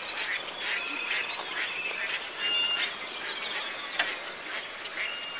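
Waterfowl on the water below calling over and over in short, repeated calls, with one sharp click about four seconds in.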